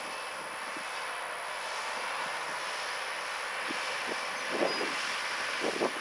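John Deere 8345R tractor's six-cylinder diesel running steadily under load while pulling an S-tine field cultivator through the soil, slowly growing louder as it approaches. A few short, louder thumps come near the end.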